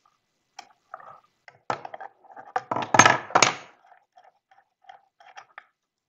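Metal cutting-ring compression fitting parts clicking and knocking as they are handled and fitted onto tubing, a quick cluster of knocks that is loudest about three seconds in, then a few scattered lighter clicks.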